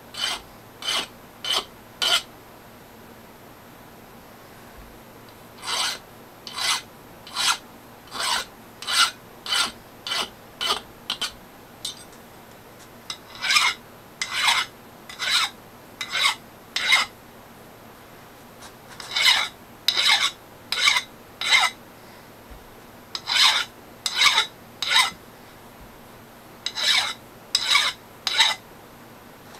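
Flat hand file scraping across the milled edge of a steel magnetic-chuck block, taking the edge off. Short strokes of about one a second come in runs, with pauses of a few seconds between the runs.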